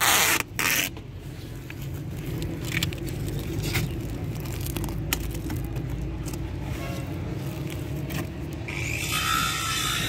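Two short loud rubbing scrapes as a cloth presses yellow plastering tape down onto the plywood shuttering joint, then a steady low rumble with a few faint clicks.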